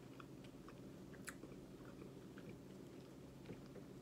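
Faint, close chewing of food, with scattered soft mouth clicks and a sharper tick about a second in.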